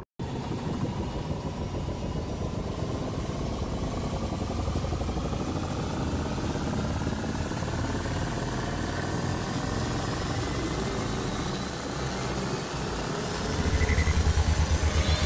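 Engine-like rumble with a whine that rises slowly in pitch throughout, joined near the end by a fast low pulsing.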